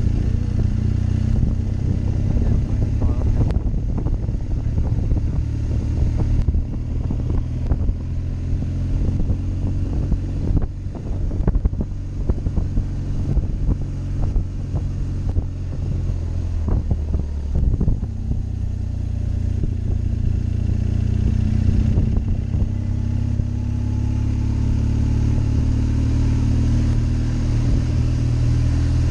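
BMW R1200GS flat-twin (boxer) engine running under way on a winding mountain road, its pitch rising and falling with the throttle through the bends. Wind rushes and buffets on the helmet-mounted microphone, with occasional knocks.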